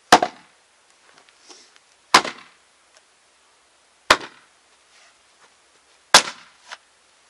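Axe splitting a firewood round on a chopping block: four sharp chops about two seconds apart, with a lighter knock just after the last.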